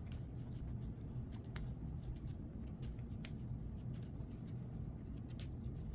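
Trading cards being handled on a tabletop: scattered light clicks and taps over a steady low room hum.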